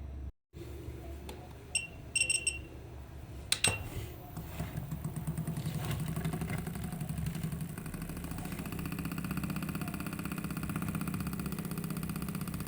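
A few short high beeps and a sharp click, then from about four seconds in a steady electric buzz that runs on.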